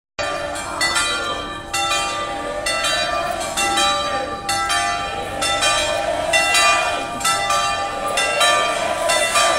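Church bells ringing, struck about once a second with the tones ringing on between strikes, over a crowd's shouting voices.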